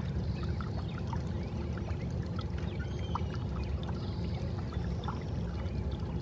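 Steady low rumbling noise with water trickling and lapping, broken by scattered small clicks and a few faint high chirps.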